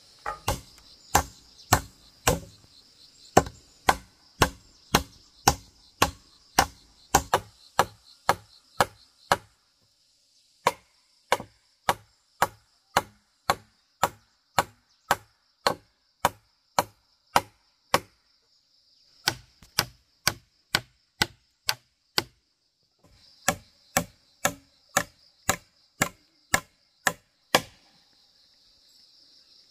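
Hammer blows on wooden poles at the joints of a pole frame, in steady runs of about two strikes a second with short pauses between runs. A high, steady insect drone goes on behind, plainest near the start and the end.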